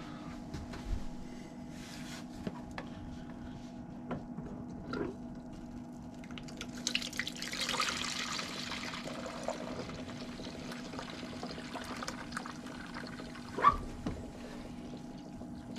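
Yeast slurry running from a conical fermenter's drain tube into a plastic jug: a liquid pour that starts about six or seven seconds in, is heaviest at first and then eases off. A sharp knock near the end, over a faint steady hum.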